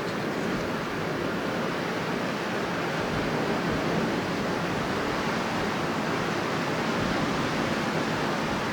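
Strong wind blowing steadily as an even rushing noise, swelling slightly a few seconds in.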